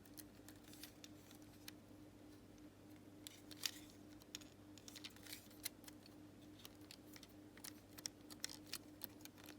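Faint, scattered small plastic clicks and ticks from handling Xbox One controller parts while the RB bumper clip is fitted back in, over a steady low hum.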